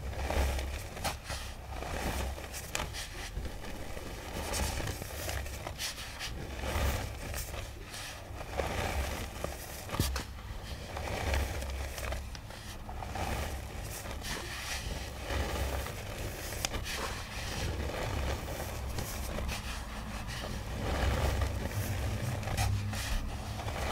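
Dry powdery iron-oxide pigment and chalk being worked by hand: continuous scraping and crackling, with many small crunches over soft low thuds.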